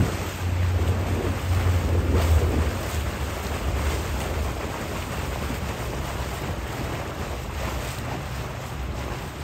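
Wind buffeting the microphone over the wash of water from a small boat under way, a low rumble that is heaviest for the first couple of seconds and then settles to a steadier rush.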